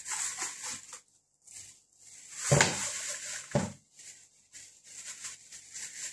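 Plastic bags rustling and crinkling as gloved hands handle them, with a dull thump about two and a half seconds in and a smaller one about a second later.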